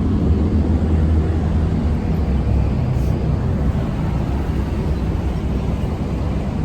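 Steady low engine and road rumble of a moving bus, heard from inside.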